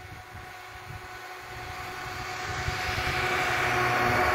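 Lada Niva's four-cylinder engine running under load as the 4x4 ploughs through deep snow, growing steadily louder as it approaches, with the rush of snow being pushed aside by the front bumper.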